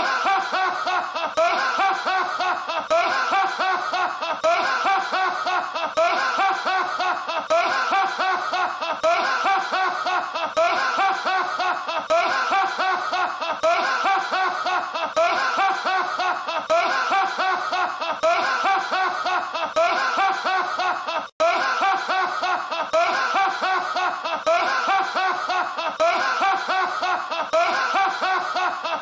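A man's deep, hearty laugh, going on and on in rapid repeated bursts as a loop. About 21 seconds in it cuts out for an instant, then carries straight on.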